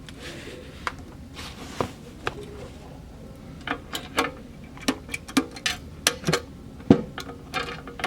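Lid of a V-Line Brute lock box being closed and its newly installed lock tested: a run of sharp metallic clicks and clacks from the lid, latch and lock. They come sparsely at first and are quicker and louder in the second half.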